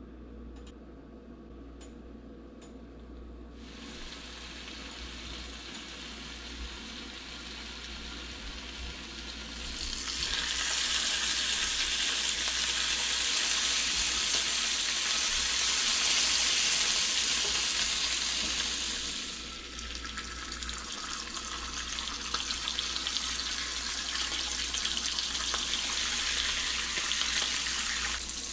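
Bacon strips sizzling in a hot frying pan: a few faint clicks at first, then a hiss that starts a few seconds in, grows much louder about ten seconds in, eases a little near twenty seconds and continues.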